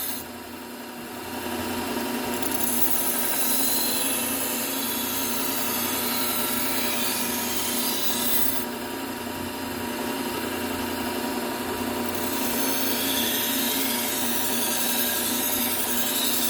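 Low-speed belt sander running a fine Trizact A30 belt, a steel kitchen-knife edge drawn across it: a steady motor hum under a rasping grind. The grind eases for a few seconds around the middle, then picks up again; this fine-grit pass refines an edge already apexed on a coarser belt.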